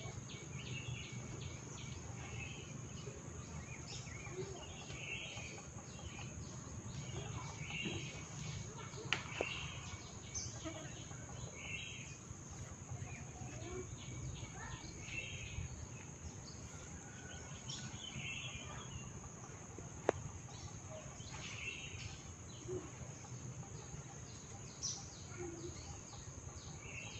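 Birds chirping over a steady high insect drone, with two sharp clicks, one about nine seconds in and one about twenty seconds in.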